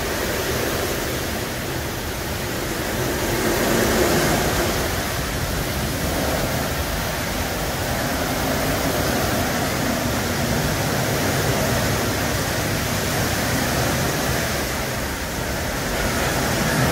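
Brush gantry truck wash running: water spraying and a large rotating brush scrubbing over a truck cab, heard as a steady rushing noise.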